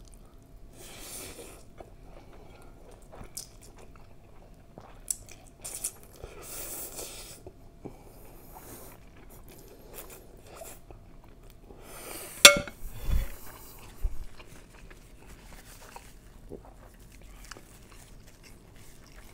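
Close-miked eating of mie goreng instant noodles: strands slurped in off a fork and chewed, in several noisy bursts. A few sharp clicks come between them; the loudest is a little past the middle and is followed by low thumps.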